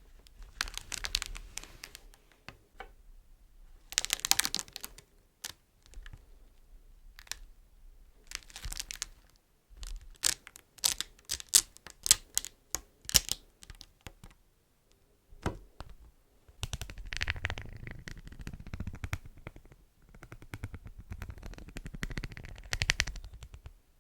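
Beeswax being crinkled and tapped. Short bursts of crinkling come first, then a run of quick, sharp taps a little before halfway, then denser crinkling and rustling through the last third.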